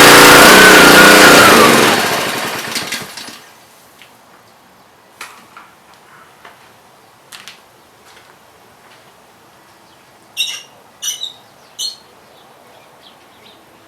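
Gas pressure washer engine running under test after an unloader valve repair, then shut off, winding down about two seconds in. After that there are a few faint clicks and three sharp knocks close together near the end.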